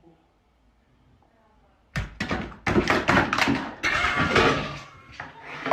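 Two long-haired cats scuffling and bolting, a rapid run of thumps and knocks starting suddenly about two seconds in after near silence.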